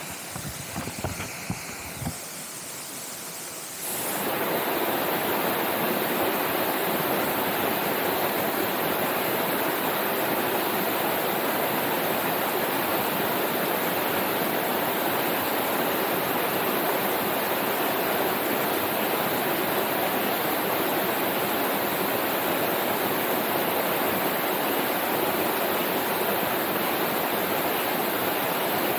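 Steady rushing of falling water, starting suddenly about four seconds in, after a few faint handling knocks.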